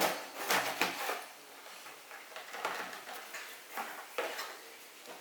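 Hands handling cardboard boxes and packaging: a run of light knocks, taps and rustles, busiest in the first second, as items are packed back into a box and set down.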